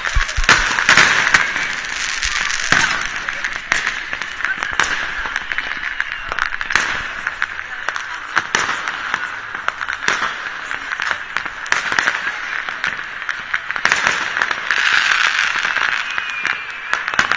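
Fireworks and firecrackers going off around a town, a run of scattered bangs and cracks at uneven intervals, some louder than others.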